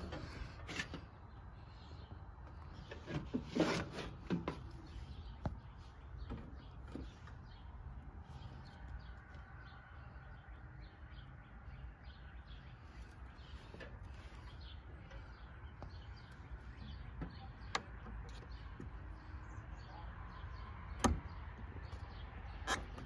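Quiet outdoor background with a few handling knocks and single sharp clicks; the last click comes as a control lever on a riding mower's dash is pushed by hand. The mower's engine is not running.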